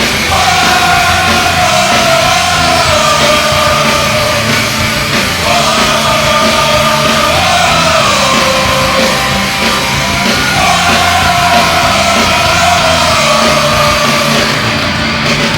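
Hard rock goal song with a sung, shouted vocal melody over a driving band, played as an ice hockey goal celebration.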